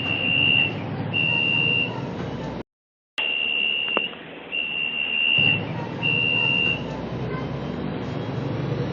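A bus's door warning buzzer sounding a row of long beeps at one high pitch, each lasting under a second with short gaps, over the low running of the bus engine. The beeps stop about two-thirds of the way through, and the engine runs on. There is a brief dropout to silence near the middle.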